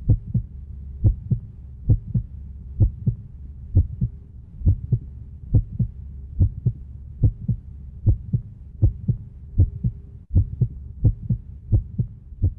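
Heartbeat sound effect: a steady double thump, lub-dub, just over once a second, over a low hum.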